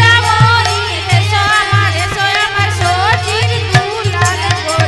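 Bengali kirtan music: a hand drum plays a steady rhythm of low strokes that bend in pitch, under a sliding, ornamented melody. Small hand cymbals (kartal) strike on top.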